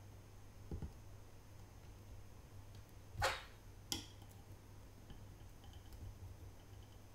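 Soldering iron heating copper desoldering braid on circuit-board pads: a low steady hum, one short hiss about three seconds in and a sharp click just after.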